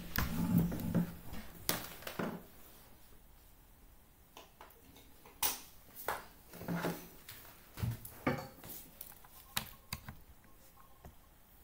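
Scattered light clicks and knocks over faint room tone, with a few brief low murmurs, mostly in the first two seconds.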